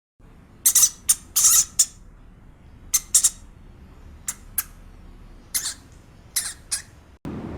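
An animal giving about a dozen short, high-pitched squawking calls in irregular clusters, the loudest bunched in the first two seconds. Near the end it cuts to a steady rushing noise like wind.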